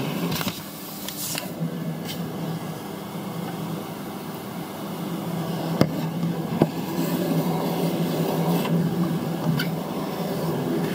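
Steady mechanical whir with a constant low hum, like a running motor. Two sharp knocks about six seconds in, from objects being handled.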